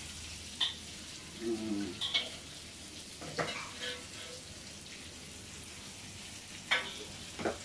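Vegetables and glass noodles sizzling in a wok over a gas flame, with a metal ladle scraping and clinking against the wok now and then as they are stirred.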